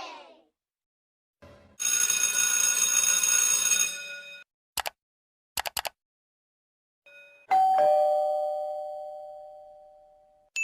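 A string of separate sound effects. First a bright ringing chime with many tones lasting about two seconds, then a few sharp clicks, then a two-note ding-dong doorbell chime, high note then low note, that slowly dies away.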